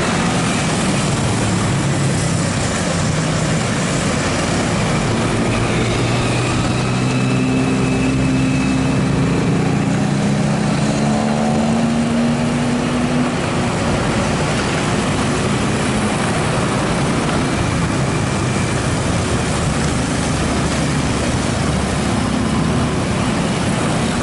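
Steady road, wind and engine noise from riding a motorcycle in city traffic. From about seven seconds in, an engine note rises for several seconds as the bike or a nearby vehicle speeds up.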